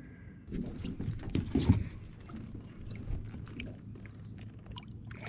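Knocks, clicks and rattles of someone moving about and handling gear in a small aluminum fishing boat, with a louder knock just under two seconds in.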